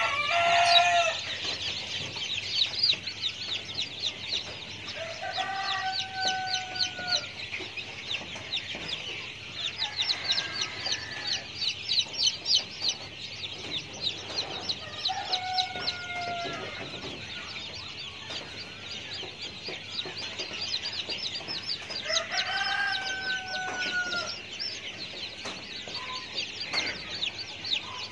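Several long drawn-out bird calls, each lasting a second or two and coming a few seconds apart, over a continuous high, rapid chirring.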